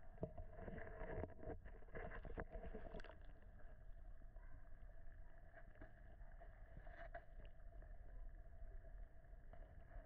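Muffled underwater noise picked up by a camera submerged in a turtle tank: a low rumble under a steady hum, with scattered faint clicks and knocks in the first few seconds and again about seven seconds in.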